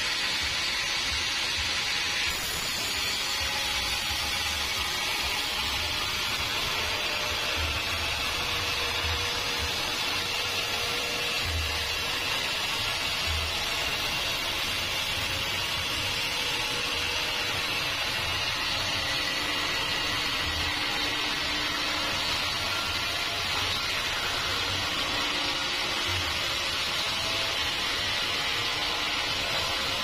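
Band sawmill's blade cutting lengthwise through a large log: a steady, unbroken sawing noise with an uneven low rumble underneath.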